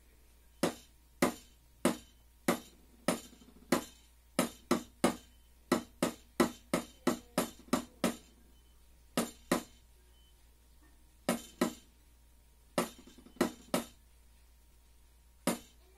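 Wooden drumsticks striking a small drum practice pad, playing a snare drum exercise in 3/4. Single sharp strokes fall in phrases with rests between them, with a quicker run of strokes in the middle, and each stroke has a short ring.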